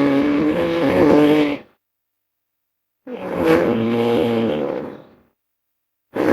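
Creature sound effect for a hippo–bear hybrid, mixed from hippopotamus and bear recordings: a pitched, wavering call that ends about a second and a half in, a second call of about two seconds starting around three seconds in, and a third starting just before the end, with dead silence between them.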